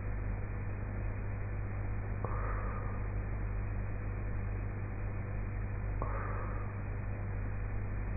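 A sleeping woman breathing through a half-open mouth with soft snores, two breaths about four seconds apart, over a steady low hum.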